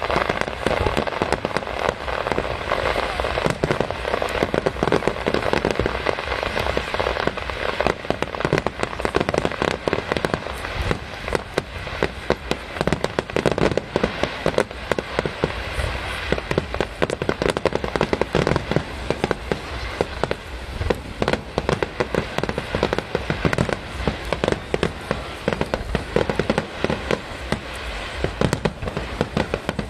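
Fireworks display in full swing: a continuous barrage of bangs and crackling bursts, one on top of another with no pauses.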